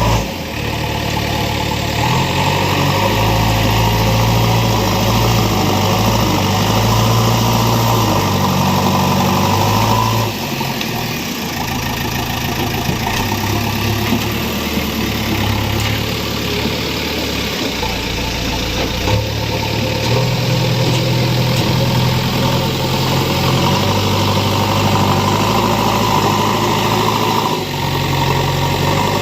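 JCB 3DX backhoe loader's diesel engine running, its note stepping up and down every few seconds as the throttle and load change.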